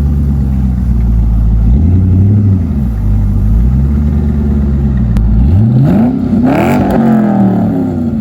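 C5 Corvette's 5.7-litre V8 idling, with a light blip of the throttle about two seconds in and a sharp rev about five and a half seconds in that falls back toward idle near the end. The exhaust is a little quiet.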